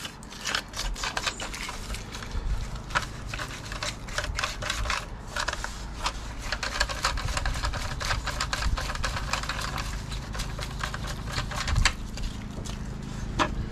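Irregular plastic clicks and rattles from a plastic display mounting bracket being handled and taken apart by hand, over a low rumble.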